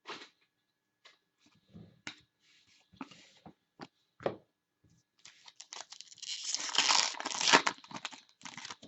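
A trading card pack being handled and torn open: scattered clicks and taps of cards for the first few seconds, then a loud crinkling tear of the pack wrapper from about five seconds in.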